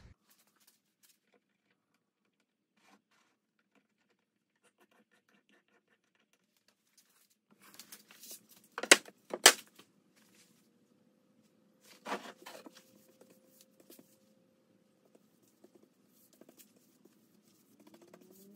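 A paintbrush being dipped in a can of finish and stroked along bare wooden boards: soft scratchy brushing with two sharp knocks about nine seconds in and another a few seconds later, over a faint steady hum. The first several seconds are near silent.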